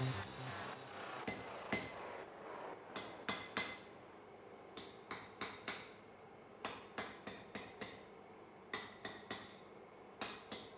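Hand hammer striking a glowing steel bar on an anvil: light blows in quick groups of two to five, each with a short metallic ring from the anvil.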